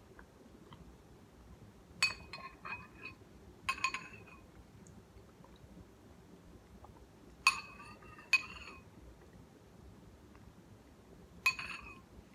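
Metal spoon clinking against a cereal bowl while eating, a handful of sharp clinks a few seconds apart, some in quick pairs or runs, each ringing briefly.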